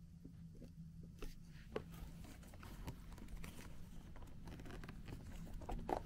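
Scattered small clicks and clinks of the metal buckle and leather strap being handled on a Dr Martens Eviee heeled leather Mary Jane shoe, with a louder click near the end and a faint steady low hum underneath.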